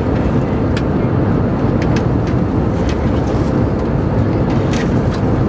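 Steady cabin noise of an Airbus A320 airliner in flight, a constant low rush of engine and airflow noise, with a few light clicks scattered through it.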